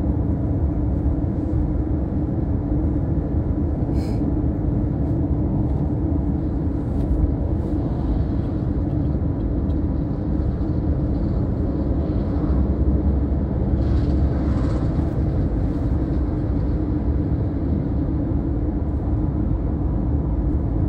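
Steady road and engine rumble of a moving car, heard from inside the cabin. One short click about four seconds in.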